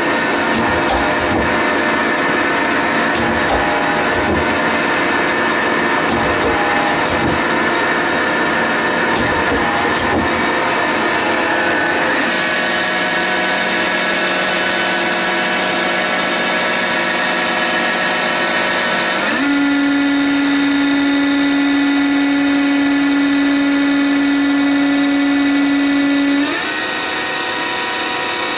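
Mori Seiki CL-153 CNC lathe running, with a steady motor whine that steps to a higher pitch about twelve seconds in and again about nineteen seconds in, then changes once more near the end, as the spindle is run at stepped speeds. The first part has irregular clicking and rattling under the machine noise.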